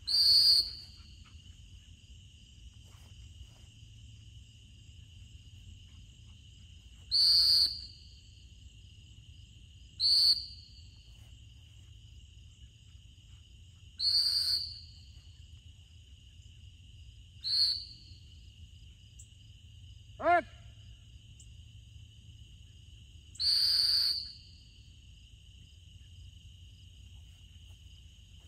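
Dog-training whistle blown in six single blasts, each under a second long and several seconds apart, handling a retriever running a blind retrieve; single blasts are the stop signal. A steady chirring of crickets runs underneath.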